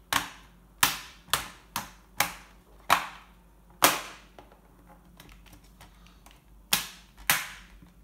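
Plastic clips of an ASUS A541U laptop's top case snapping into place as the case is pressed down along its edge: a series of sharp clicks, about seven in the first four seconds, then two more near the end.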